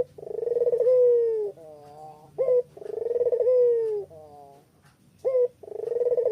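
Puter pelung dove cooing. Each phrase is a short rising note, then a long coo that pulses at its start, then a shorter tail of falling notes. The phrase repeats about every three seconds.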